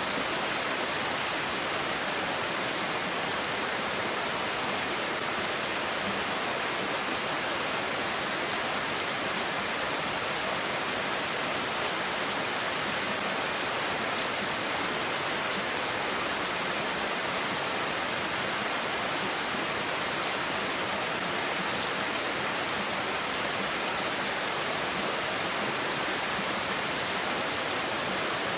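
Steady rainfall: a dense, even hiss with a few faint drop ticks.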